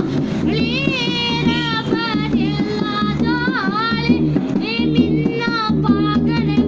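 A girl's high voice singing a Rajasthani folk song over a steady percussion beat, with short breaks for breath between phrases.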